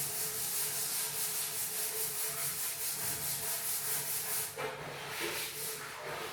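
Cat scratching at a wooden door with its claws, asking to be let into the room: a rapid, even run of rasping scratches that pauses briefly about four and a half seconds in.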